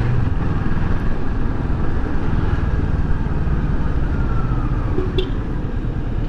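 Kawasaki Versys 650 motorcycle's parallel-twin engine running steadily while riding, under a steady low rumble of road and wind noise. A brief high chirp comes about five seconds in.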